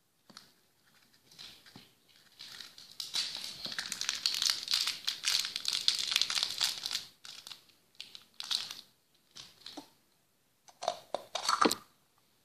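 A small clear plastic bag of candy crinkling as it is handled, for about four seconds, followed by a few short plastic clicks and knocks as the toys and capsules are set down.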